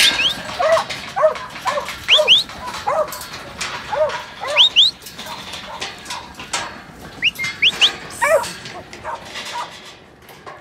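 Black and tan yard dog barking again and again at a mob of sheep in the yards, the working bark used to move stock. The barks come about every half second at first, then thin out to a few by the end.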